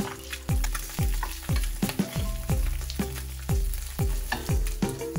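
Eggs sizzling as they fry in oil in a nonstick skillet, scraped and turned over with a wooden spatula a few seconds in. Background music with a deep, steady beat runs underneath.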